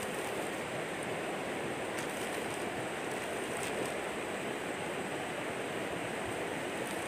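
Steady rush of a shallow river running over rocks, with no distinct splashes.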